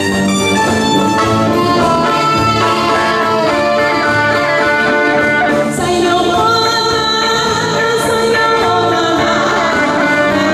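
Amplified live band playing a pop song: a woman sings into a microphone over clarinets and electric bass guitar, with a steady low beat.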